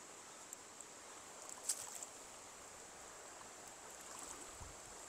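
Faint steady rush of river water flowing past a wading angler, with a thin high whine over it and one brief sharp click or splash about a second and a half in.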